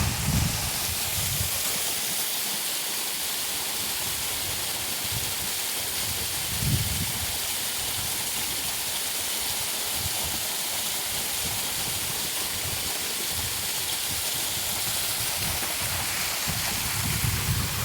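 Waterfall rushing: a steady, even hiss of falling water. A few brief low bumps come and go over it, the clearest about seven seconds in.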